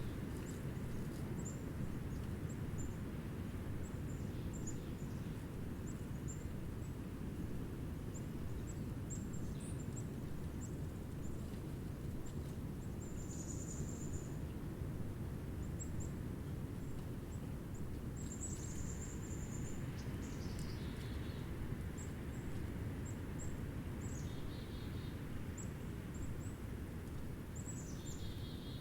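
Black-capped chickadees calling: many short, thin, very high chips and a couple of longer high notes, with a few quick series of lower, rapid notes in the second half. Under the calls runs a steady low rush of wind.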